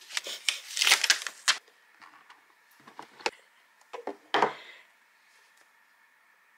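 Paper card and cardboard perfume packaging rustling as it is unpacked by hand, then a few sharp knocks and a short scrape as the box and glass bottle are lifted and set down.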